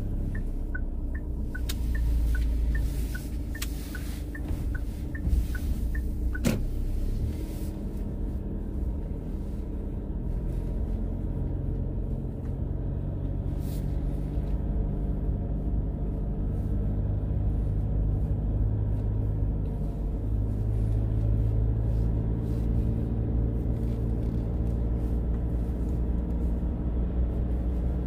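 Car's low, steady road and engine rumble heard from inside the cabin while driving. For the first six seconds a light ticking runs at about two ticks a second, and a single sharp click comes about six and a half seconds in.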